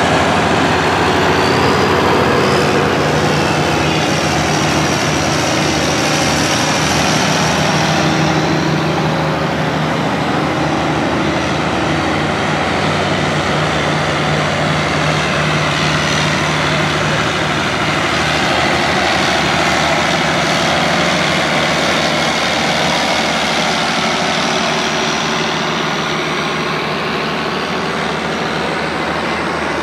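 Diesel farm tractor engines running steadily as a procession of tractors drives slowly past, one after another, the drone shifting as each one goes by.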